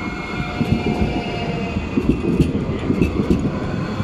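Electric tram passing close: wheels rumbling and knocking over the rails, with a steady electric whine from the running gear.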